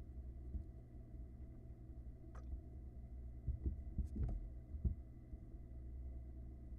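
Soft low thumps and knocks, a cluster of them past the middle, with a couple of brief sharp scratchy sounds, over a steady low hum from the nest-box camera's microphone: barn owl nestlings moving and hopping about on the nest-box floor.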